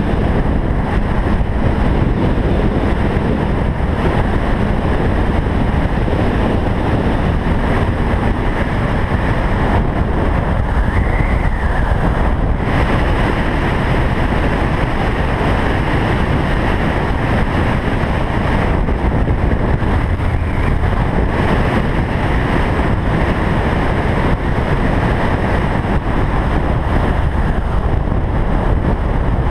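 Steady wind buffeting on the camera microphone mixed with the 2008 Kawasaki Ninja 500R's parallel-twin engine, running steadily as the motorcycle rides along.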